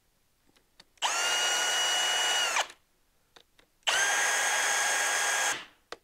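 Cordless drill driving two 8 mm bolts into a snowmobile brake reservoir cover. The motor runs twice, each time for about a second and a half, with a steady whine that rises quickly at the start and falls away as it stops.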